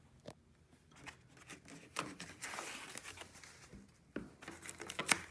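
Packing padding being pulled out of a hard cello case: irregular rustling and crinkling with a few sharp clicks, one near the end.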